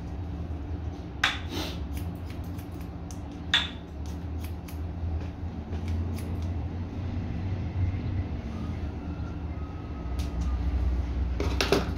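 Barber's scissors snipping through hair in short, light clicks, over a steady low hum. Two louder knocks come a little over a second in and about three and a half seconds in.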